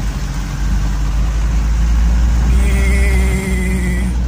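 Steady low rumble of a vehicle's engine and tyres on a rough rural road, heard from on board. About two and a half seconds in, a wavering higher tone rides over it for over a second.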